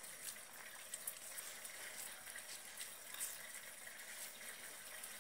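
Faint wet squelching and small crackles of a homemade flour slime being squeezed and kneaded between hands coated in sunflower oil.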